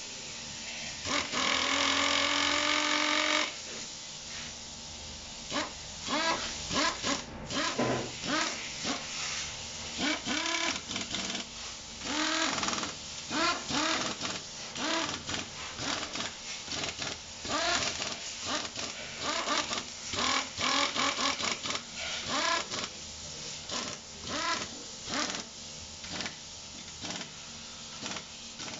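Small handheld power driver running valve-body bolts on a U441E automatic transaxle. It gives one steady whine for about two seconds near the start, then many short spin-ups one after another, each rising in pitch.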